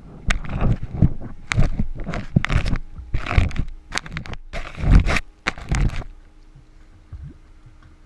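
Rough scraping and rumbling right against a GoPro strapped to a concrete pump's cleaning sponge, in irregular bursts as the sponge and camera are pushed into the pipeline. It stops about six seconds in, leaving a faint hum.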